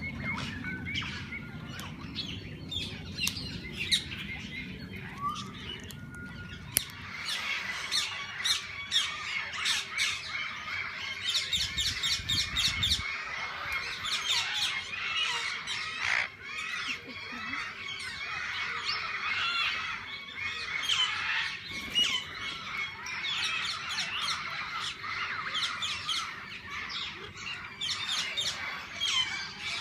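A flock of parakeets squawking and chattering, many birds calling over one another without a break. A low rumble sits under the calls for the first few seconds and briefly again about twelve seconds in.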